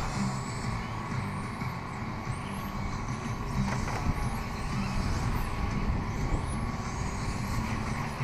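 Electric radio-controlled touring cars lapping the track, their motors giving a faint high whine that rises and falls as they accelerate and pass, over a low steady rumble.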